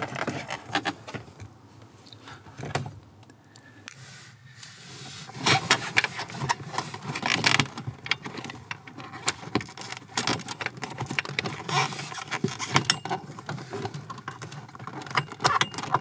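Irregular metallic clinking and rattling of hand tools and loose metal parts being worked at the steering column. It is sparse for the first few seconds and becomes busier from about five seconds in.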